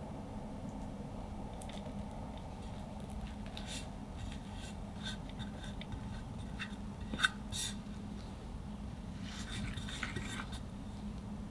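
Metal offset spatula spreading and smoothing whipped chocolate cream on a sponge cake layer: scattered light clicks and scrapes, with one sharp click of metal a little past the middle and a run of scraping near the end as the cream is smoothed around the edge.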